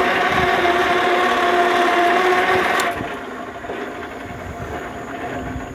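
Electric-converted Ford 9N tractor driving along in second gear: a steady whine from the electric motor and drivetrain, with a lower and a higher note over a running hum. About three seconds in it drops to a quieter hum.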